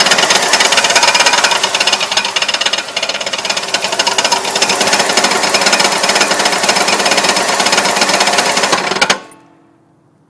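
Pontiac Grand Am 3.3-litre V6 running with a loud, rapid knocking, which stops suddenly near the end. The knock remains after the main and connecting-rod bearings were replaced following a drive with the oil very low; the owner suspects the cam bearings.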